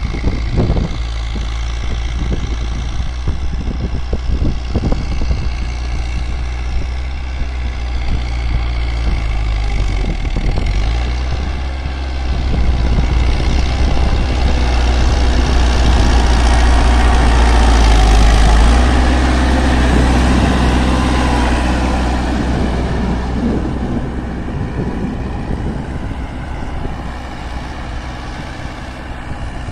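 New Holland tractor's diesel engine working under load as it pulls a tine cultivator through tilled soil, growing louder as it comes close about halfway through, then fading as it moves off.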